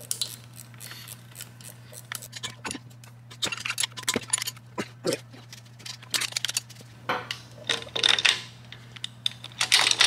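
Hand tools clicking and clinking on the metal rocker-arm hardware of a Harley-Davidson Twin Cam cylinder head as the rocker arms are unbolted, in short runs of rapid clicks.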